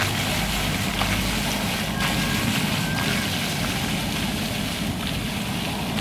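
Ground-level paving fountain, its rows of water jets shooting up and falling back onto the wet stones in a steady splashing hiss, with a low rumble underneath.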